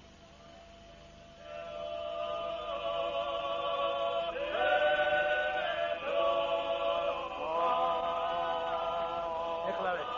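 A choir chanting in long held notes, several voices together, coming in about a second and a half in and moving to a new pitch every second or two.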